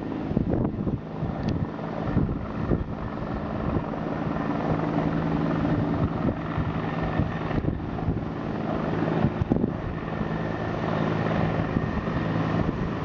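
A steady engine drone with a humming undertone, strongest in the middle, under wind buffeting the microphone.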